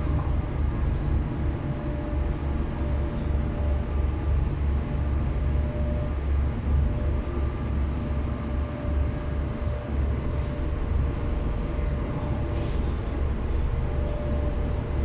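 Steady low rumble and drone of a car ferry's engines while under way, with a few faint steady hum tones above it.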